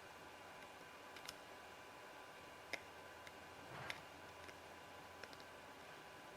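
Near silence with a few faint, sharp clicks, about four in all, the sharpest near the middle: small metal carburetor parts and a cleaning tool being handled while a clogged carburetor jet is poked clear.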